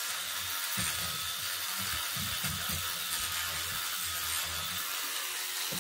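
Battery-powered sonic scrubber brush buzzing steadily as its vibrating head scrubs the base of a kitchen mixer tap. A lower hum wavers as the brush is worked and fades out about five seconds in.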